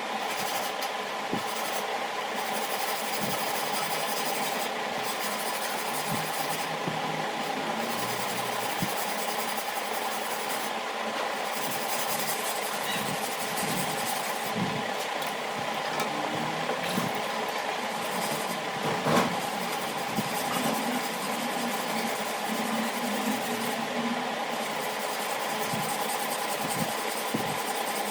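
A blade sharpener grinding steadily: a continuous rasping over an even hum, with one sharp click about two-thirds of the way through.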